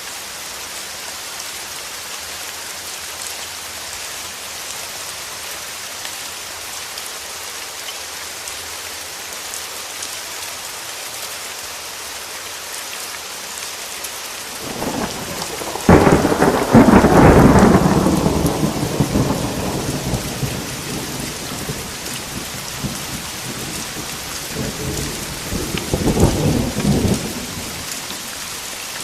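Steady rain falling, with a thunderclap about halfway through that breaks sharply and rumbles away over several seconds, then a second, smaller roll of thunder near the end.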